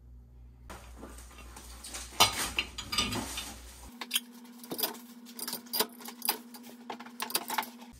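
White ceramic pasta plates (IKEA OFANTLIGT) clinking against each other and the wire rack as they are stood in a dishwasher, a run of sharp clinks and knocks starting about two seconds in and coming thicker near the end.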